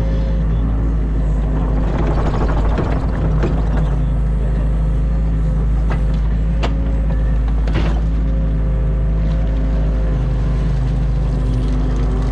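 New Holland Kobelco E50.2 mini excavator's diesel engine running steadily under load while the arm and bucket work silt out of the ditch. A few sharp knocks come near the middle.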